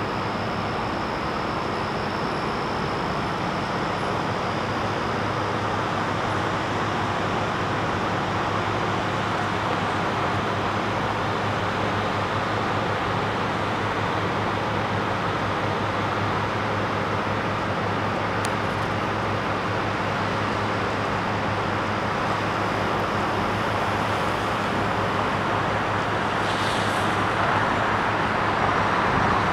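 Steady city traffic noise with a constant low hum underneath, and a brief higher hiss near the end.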